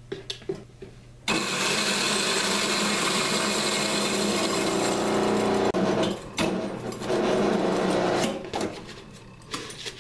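Grindmaster commercial coffee grinder running as it grinds a cup of rice through itself to clean out the mill. The motor and grinding start suddenly about a second in and run steadily for several seconds, then stop and restart a couple of times before cutting off near the end.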